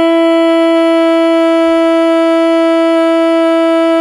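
Saxophone holding one long, steady, loud note, blown with no keys pressed (the open C#): a beginner's long-tone exercise.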